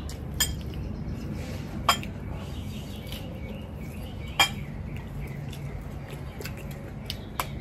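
Kitchen utensils clinking against dishes and pots: three sharp clinks a few seconds apart, then a couple of fainter taps near the end, over a steady low hum.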